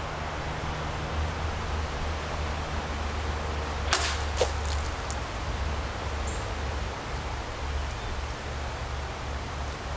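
About four seconds in, a sword is swung through a water-filled bottle standing on a post. There is a sharp hit, then a second, louder crack about half a second later as water splashes off. A steady low hum and hiss run underneath.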